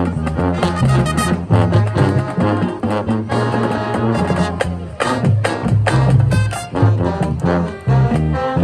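High school marching band playing a brass-led number with drums keeping a steady beat: trombones, trumpets and low brass over snare and bass drum.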